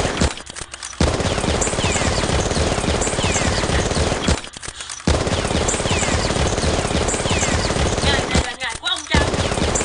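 Sound-effect automatic gunfire, a dense run of rapid shots with short falling whines mixed in. It breaks off for under a second three times: just after the start, around four and a half seconds in, and near the end.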